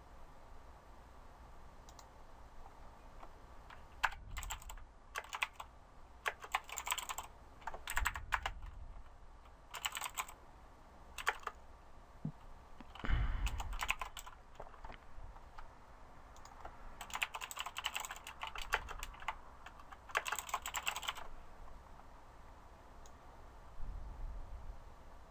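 Typing on a computer keyboard in several short bursts of rapid key clicks, with pauses between them.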